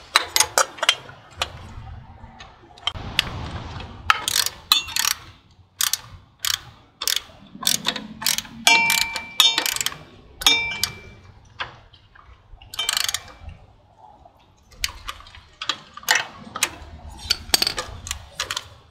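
Hand ratchet clicking in short, uneven strokes, with sharp metallic clinks of wrenches against the motorcycle's engine parts, as the new oil filter is worked into place in a tight spot. A metal tool rings briefly about nine seconds in.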